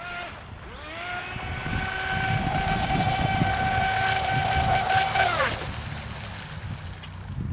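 Brushless electric motor of an RC offshore boat whining as it runs at speed on the water. The whine rises twice as the throttle comes up, holds steady for about four seconds, then falls away near the end as the throttle is let off.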